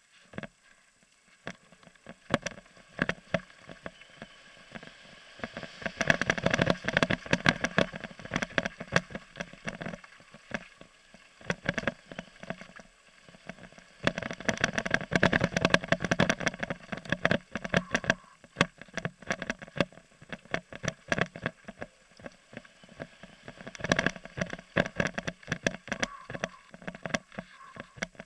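Mountain bike clattering down a rough gravel trail: tyres hitting stones and bumps and the bike rattling in dense runs of sharp knocks, which come in bouts and are loudest about six to ten and fourteen to eighteen seconds in.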